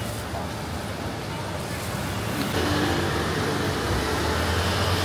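Steady rushing noise over a low hum, growing louder about two and a half seconds in.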